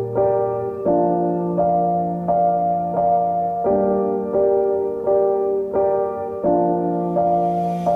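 Background piano music: a slow, gentle passage of chords and a simple melody, with fresh notes struck roughly every second.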